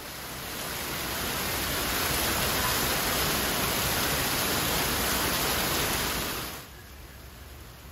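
Heavy rain with water cascading off a roof edge and splashing onto a parked car: a dense, steady splashing hiss that builds over the first couple of seconds. About six and a half seconds in it cuts off abruptly to a much quieter rainy hiss with a low rumble.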